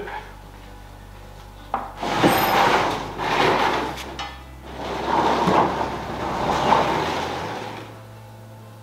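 A plastic portable basketball hoop on its pole being turned around by hand: a sharp click, then two stretches of scraping and rustling from the plastic backboard and metal parts being handled.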